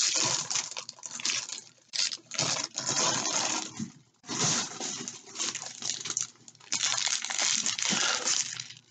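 Clear plastic bags of diamond-painting drills being pulled out and handled: plastic rustling and crinkling in bursts, with short pauses between them.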